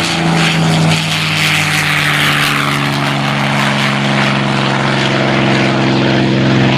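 P-51D Mustang's Packard Merlin V-12 engine and propeller droning loudly on a pass, the pitch sinking slightly as the aircraft goes by. A high rushing noise rides over it and fades after the first few seconds.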